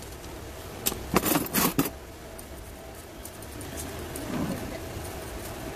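Metal repotting tools clinking, several sharp clicks about a second in, then faint light ticking as a metal spatula and tweezers work in the gravel top dressing around a potted succulent.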